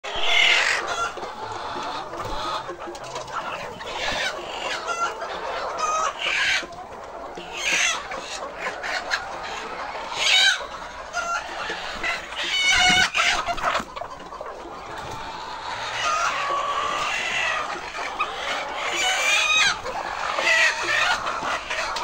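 A large flock of white laying hens clucking and calling together in a continuous din, with several louder, rapidly repeated calls rising above it now and then.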